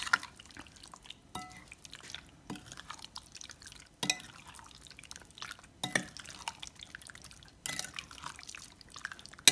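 Metal spoon stirring raw chicken pieces through a thick yogurt marinade in a glass bowl: wet squelching with irregular clicks and clinks of the spoon against the glass.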